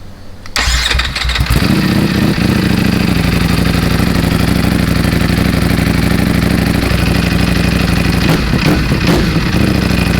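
Sport motorcycle with an aftermarket exhaust starting up about half a second in, then settling into a steady idle.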